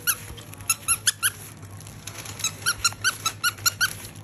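A baby toy's squeaker squeezed over and over, giving short, high squeaks about four or five a second in runs with pauses between them.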